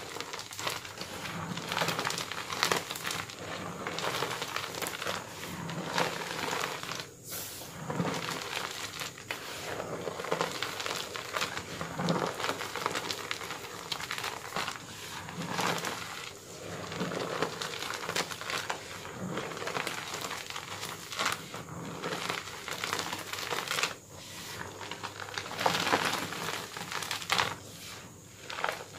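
Homemade gym chalk blocks being crushed and crumbled between bare hands in a heap of chalk powder: a continuous dry crunching and crackling that swells with each squeeze, every second or two.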